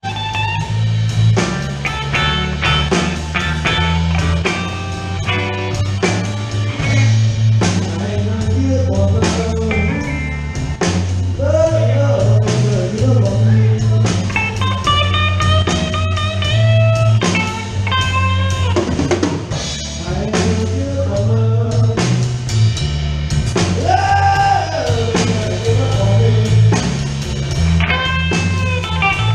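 Blues band playing: electric guitar lead with bending notes over drum kit and bass in a steady shuffle.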